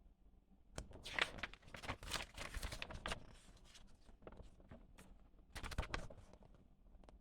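Paper and packaging being handled, with rustling and scraping. There is a longer spell of it about a second in and a shorter one near six seconds.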